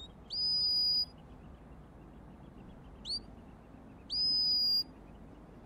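Sheepdog handler's whistle commands to the working dog: three high whistles, the first and last sliding up quickly and then held for under a second, the middle a brief upward flick.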